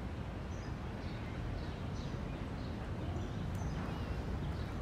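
Quiet, steady low background noise of the room, with a few faint, short, high chirps scattered through it.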